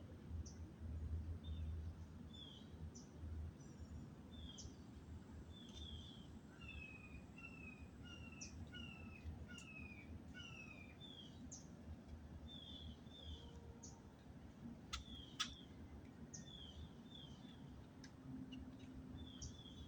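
Faint dawn chorus of several birds in a tree canopy: short falling chirps repeated throughout, with a run of lower, paired slurred notes from about six to ten seconds in. A low rumble runs underneath, and a couple of sharp clicks come about fifteen seconds in.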